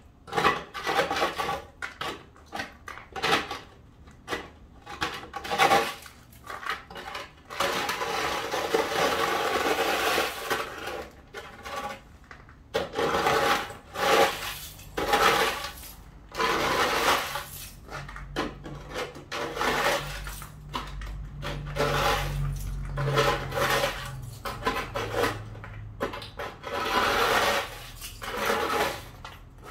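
Snow shovel scraping over an icy, slushy driveway in repeated pushes, with one longer continuous scrape about eight seconds in. A low rumble swells and fades under the scraping in the middle.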